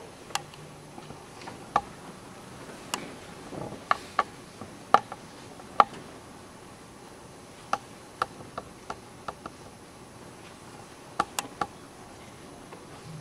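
A US flag being folded by hand, its fabric pulled taut, giving sharp, irregular clicks and snaps in small clusters, about sixteen in all.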